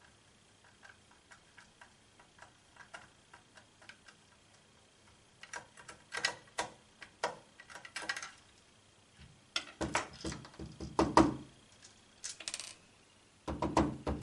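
Small Phillips screwdriver turning tiny screws out of a plastic security-camera housing: a run of faint, evenly spaced ticks at about three a second, then louder clicks and knocks of the plastic housing being handled, loudest about ten seconds in and again near the end.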